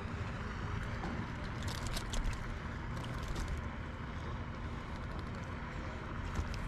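Light clicks and rustles of a small trout being unhooked from a jig by hand over a rubber-mesh landing net, bunched about two seconds in and again about three seconds in, over a steady outdoor background hiss.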